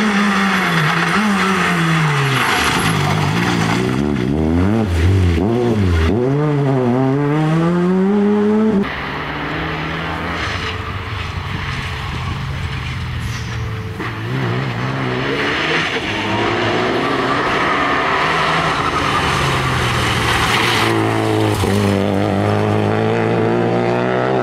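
Rally cars at full throttle, one after another. First a Peugeot 306 rally car's engine revs up and drops again and again through gear changes. After a sudden change about nine seconds in, a Renault Clio rally car's engine pulls through the gears and climbs in pitch again near the end.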